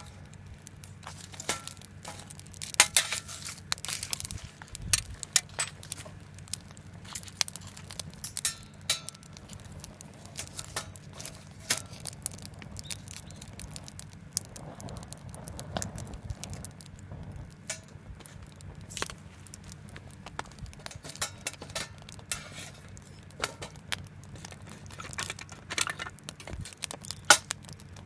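Irregular sharp clicks and light clinks scattered throughout, over a steady low hum.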